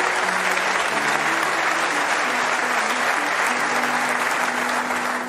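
Snooker audience applauding steadily, with faint music underneath.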